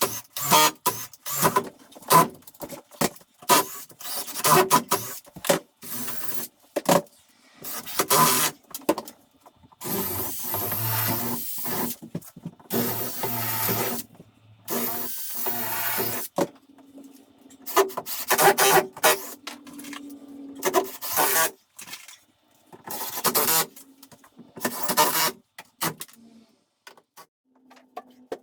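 Repeated rasping, scraping strokes of hand work on building material, coming in irregular bursts with short pauses, with a longer stretch of steady rasping in the middle.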